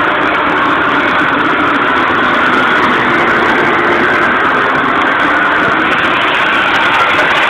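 Very old electric vacuum cleaner motor running steadily with a loud, even whir.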